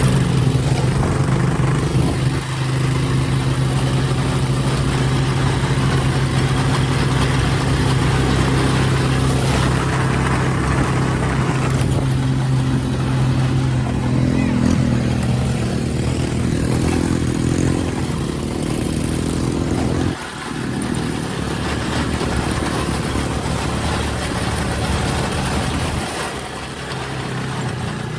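Small off-road vehicle engine running steadily while riding, its note dropping suddenly about twenty seconds in and easing again near the end.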